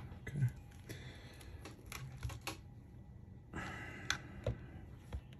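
Light, uneven clicks and taps of metal tweezers against the battery and the work mat while small parts are handled, with a brief rustle a little past halfway.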